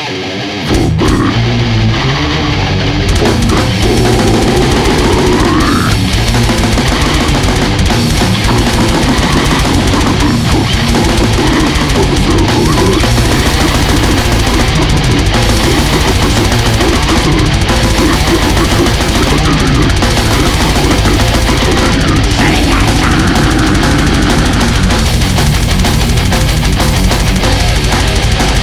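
Loud extreme metal recording: distorted guitars over fast, dense drumming. It comes in at full force within the first second after a brief quieter moment, then stays loud and steady throughout.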